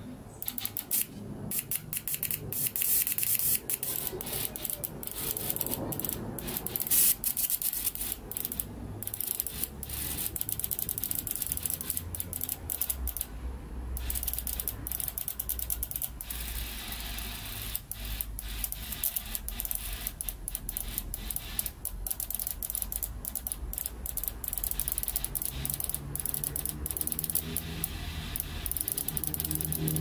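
Small 12 V tire-inflator compressor running with a fast mechanical rattle, pumping air into a catch can to pressurize cleaning fluid for a fuel-injector rail; a steady low hum joins in about halfway.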